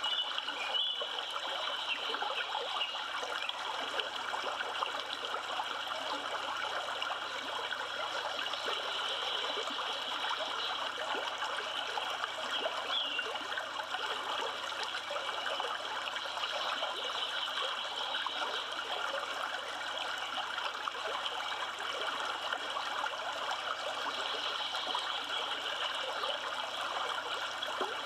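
Steady rushing of the Yellowstone River flowing, with a couple of faint high chirps about a second in and near the middle.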